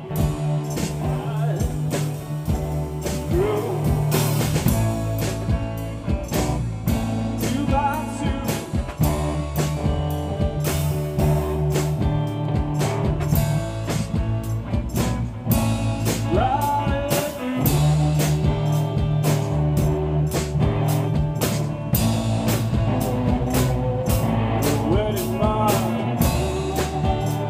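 Live rock band playing: drum kit keeping a steady beat under electric guitars and bass, with gliding guitar or vocal lines on top.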